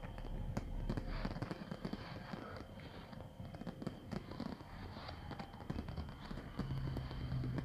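Fireworks display: a dense barrage of aerial shells bursting, many sharp bangs and cracks overlapping in quick succession.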